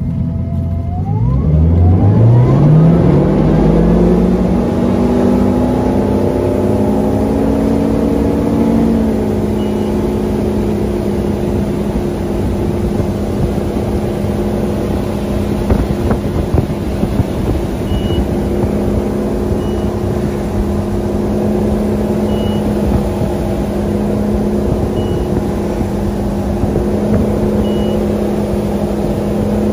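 Ski boat's inboard engine, heard from on board, revving up hard from idle over about eight seconds to pull a waterskier out of the water, then running at a steady towing speed under a rush of wake and wind. In the second half, short high-pitched beeps sound every two to three seconds.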